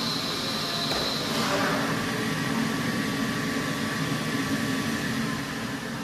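Commercial sweeping and mopping robot's motors running with a steady whirring hum; about a second and a half in, its high whine gives way to a lower steady one.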